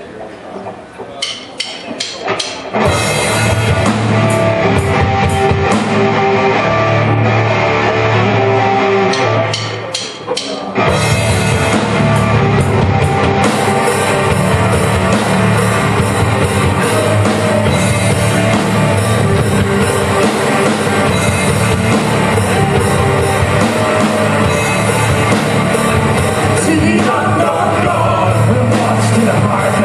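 A live band playing a rock song with drum kit, electric guitar and singing. A few sharp taps about a second in lead into the full band, which drops back briefly around ten seconds, marked by a few sharp hits, before coming in again.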